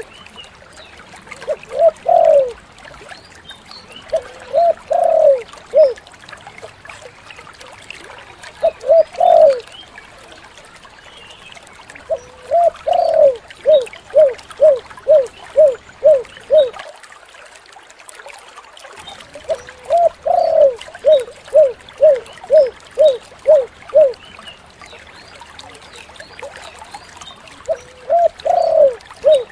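Spotted dove (tekukur) cooing in about six phrases. Each phrase opens with a longer rising-and-falling coo and runs into a quick string of short coos, the longest strings around eight notes. A faint steady hiss sits underneath.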